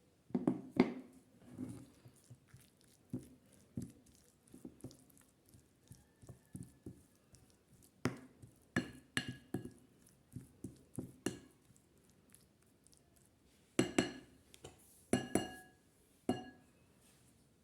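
Glassware and kitchen utensils being handled: scattered soft knocks and taps, with several sharp ringing clinks in the second half.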